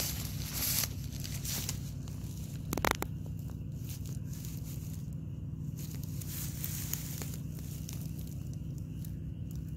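Grass and reeds rustling and crackling as someone moves along the bank with a handheld camera, loudest in the first second, with a sharp click just before three seconds in, over a steady low hum.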